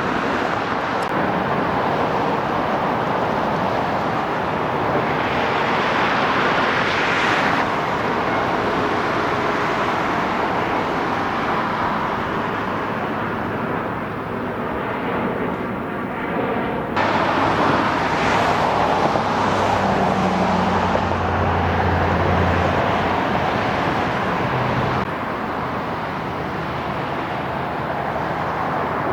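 Road traffic noise: vehicles passing one after another, swelling and fading, with a deeper engine hum about twenty seconds in.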